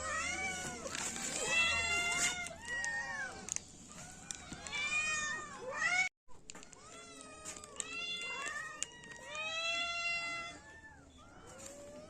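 Several kittens meowing repeatedly in high, rising-and-falling calls that often overlap. A sudden brief cut to silence about six seconds in.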